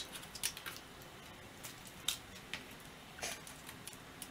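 A few light, separate clicks and taps, about eight, scattered unevenly from hands handling cables and computer hardware on a metal bench.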